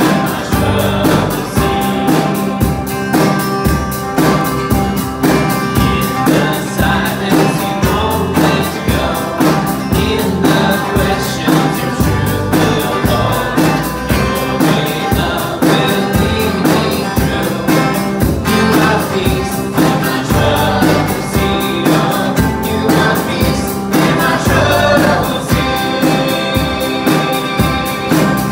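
Live contemporary worship song: a woman sings lead with backing singers over electric bass, keyboard and acoustic guitar, with a steady beat.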